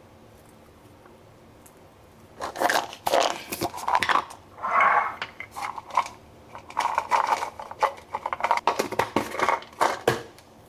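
Irregular clatter and clinking of small hard objects being handled, starting about two seconds in and going on in uneven bursts until near the end.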